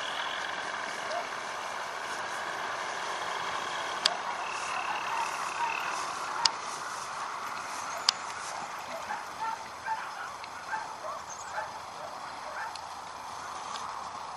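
Paramotor engine droning overhead, heard faint and steady from the ground, with a few sharp clicks in the first half and short distant calls in the second half.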